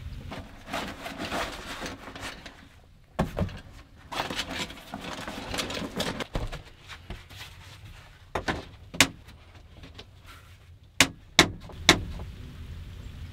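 Rustling and handling sounds of someone moving about inside a pickup's camper shell, then a handful of sharp clicks and knocks in the last few seconds, three of them close together near the end.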